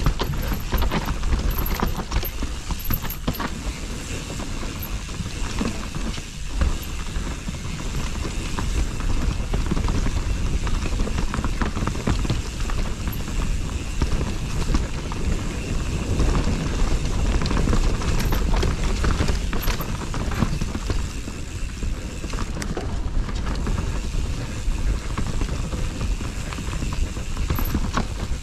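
Mountain bike riding fast down a dirt trail: tyres rolling over the ground and the frame and chain rattling with a constant stream of small knocks over bumps, with wind rumbling on the microphone.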